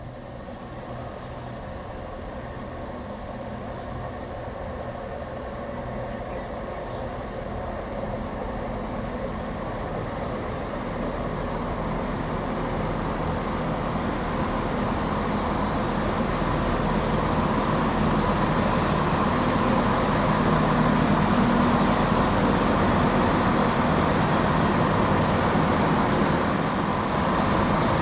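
East Midlands Railway Class 170 Turbostar diesel multiple unit approaching and drawing into the platform, its underfloor diesel engines and wheels on the rails growing steadily louder and then holding steady as it comes alongside. A thin high whine joins in about halfway through.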